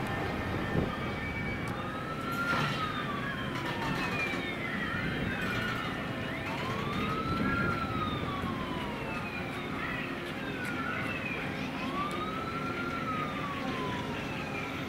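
Emergency-vehicle siren wailing, rising and falling in pitch about every five seconds, three times over, against steady street background noise.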